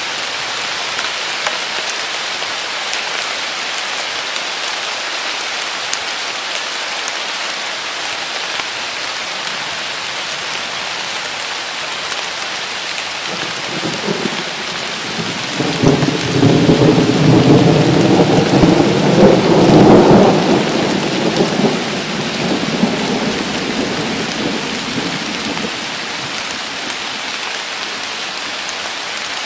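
Heavy summer rain falling steadily, with a long roll of thunder that builds about halfway through, rumbles loudest for several seconds, then fades away.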